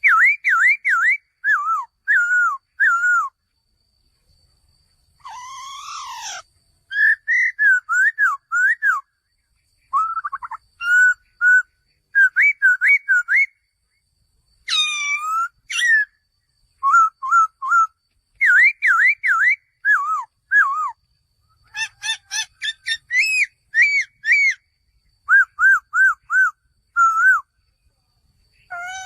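Male laughingthrush singing: loud whistled phrases of quickly repeated looping notes, broken by short pauses, with an occasional harsher, raspy call mixed in.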